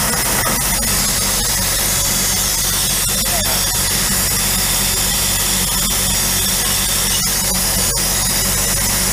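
Vertical milling machine running with an end mill cutting a slot in a metal plate: a steady motor hum under the loud hiss of a coolant mist sprayer, with a few light clicks of the cut.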